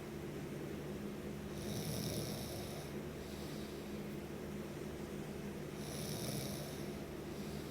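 Snoring in slow, regular breaths: a steady low rumble with a hissing breath twice, about four seconds apart.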